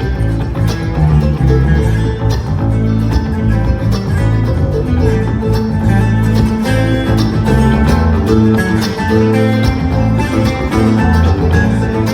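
A bluegrass band playing, with banjo and guitar picking over a steady low bass line.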